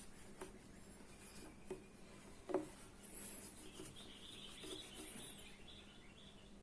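Faint background with a few light clicks and some faint, high-pitched chirps.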